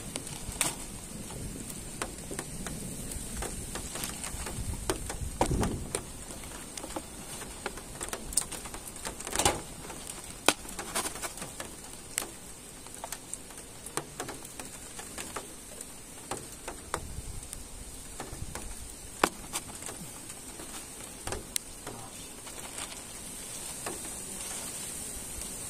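Light rain falling, with scattered, irregular drops tapping on a surface, over a steady faint high-pitched hiss.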